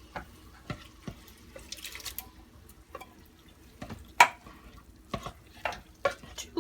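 Canned diced tomatoes and green chilies being emptied into a cooker pan of browned ground beef, with a series of sharp taps and clinks of metal on metal, the loudest about four seconds in.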